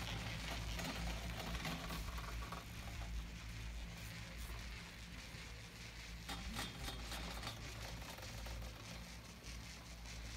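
Chairlift running, heard from a seat on it: a steady low hum with light mechanical rattling, and a short cluster of clicks about six seconds in.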